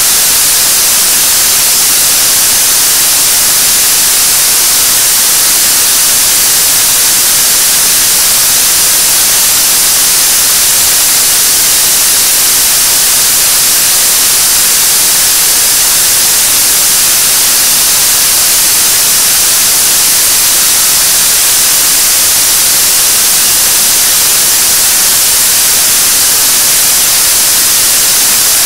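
Steady, loud hiss of a 7-tonne-class liquid-propellant rocket engine, the third-stage engine of Korea's Nuri (KSLV-II) launcher, held at full steady-state thrust on a test stand during a 500-second burn. The noise is even and unchanging, heaviest in the high range.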